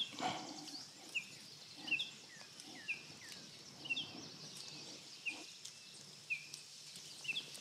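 Soft scraping and rustling of fingers digging into the soil of a pot of rooted cuttings. A small bird chirps repeatedly throughout: short, high, falling notes, one or two a second.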